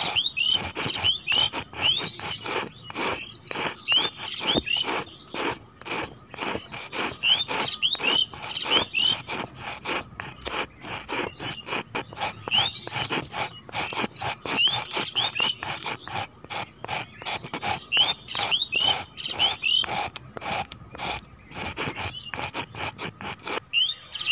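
Tiny metal trowel scraping and smoothing wet cement on a small wooden board, a fast run of short scrapes, several a second, with short high squeaky chirps among them.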